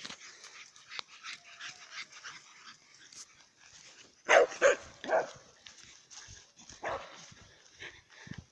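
A dog barking during play: three sharp barks in quick succession a little past the middle, then one quieter bark shortly after, over faint rustling.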